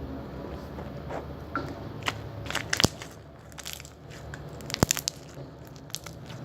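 Crunchy slime with styrofoam beads being squeezed and kneaded by hand, giving irregular crackles and pops; the sharpest pops come about three and five seconds in.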